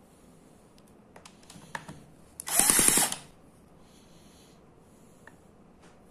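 Cordless drill spinning up against the flywheel of an Eachine EM3 miniature four-stroke engine to crank it: one loud burst of about half a second with a rising whine. A few light clicks come just before it.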